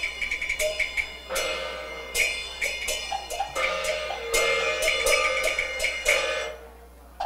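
Cantonese opera percussion ensemble playing a rapid passage of drum and clapper strikes with gongs and cymbals clashing and ringing. It stops about six and a half seconds in.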